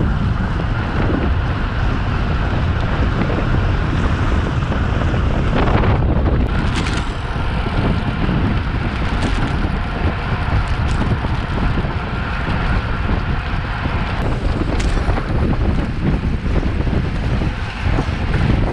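Heavy wind noise buffeting the microphone of a camera riding on a racing bicycle at speed, with a few brief clicks along the way.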